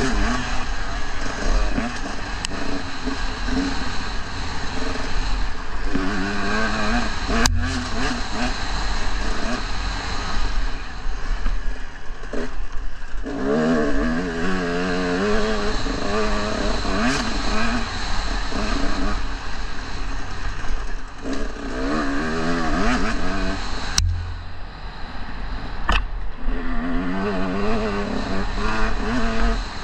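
KTM dirt bike engine revving up and down under a working throttle while riding off-road, its pitch wavering rapidly, over a steady low rumble. A few sharp knocks break in.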